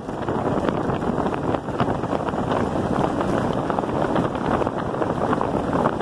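Steady wind buffeting the microphone of a camera riding on an electric bike at speed, mixed with tyres rumbling and crunching over a gravel road.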